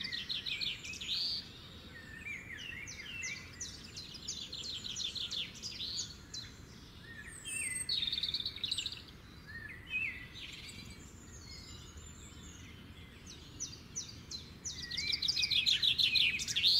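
Several songbirds chirping and singing, with quick rising chirps and fast trills of rapidly repeated notes, the trills busiest near the end, over faint low background noise.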